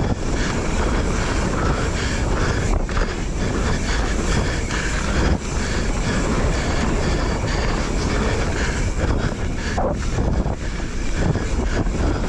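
A mountain bike riding down a dirt singletrack, heard from an action camera on the rider. A steady, dense rumble of wind buffeting the microphone mixes with the tyres and bike rattling over dirt, roots and rocks, with a few brief dips.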